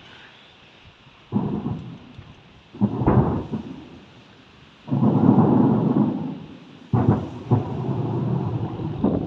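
Fireworks shells bursting in the sky: about five deep booms in quick succession, each trailing off in a rolling rumble, the longest rumble in the middle.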